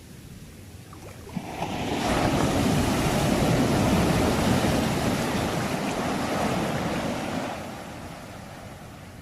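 A single ocean wave breaking and rushing up the shore: the surf swells in about a second and a half in, holds for several seconds, then washes back and fades near the end.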